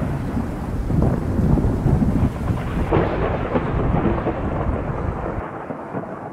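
Thunderstorm sound effect: a deep rolling rumble of thunder with a rain-like hiss, fading out toward the end.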